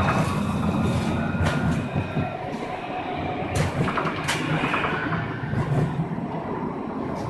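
Luas light-rail tram running along its track, heard from inside the cab: a steady low rumble of the running gear with a few sharp clicks from the wheels on the rails.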